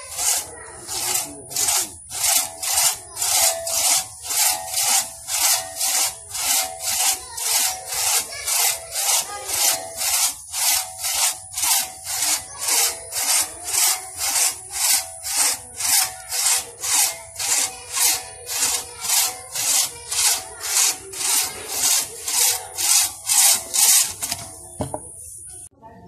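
Long two-man crosscut hand saw cutting through a log, rasping back and forth in a steady rhythm of about two strokes a second. The sawing stops near the end.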